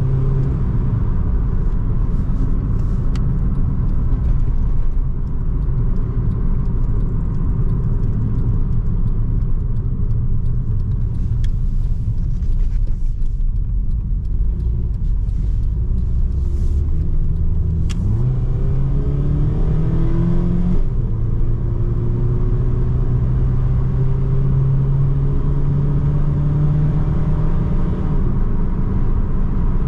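A 1992 Nissan March's small four-cylinder engine heard from inside the cabin on the move, running over steady road and tyre noise. Its note climbs about two-thirds of the way in, drops back, then climbs slowly again as the car gathers speed.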